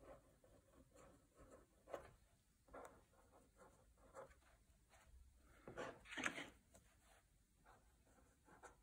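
Faint scratches and taps of a black fine liner pen drawing short strokes on watercolour paper, with a louder stroke or rub about six seconds in.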